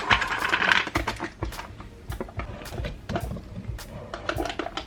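Protein powder tub and scoop being handled: a series of light knocks and clicks, with a short scraping rustle in the first second.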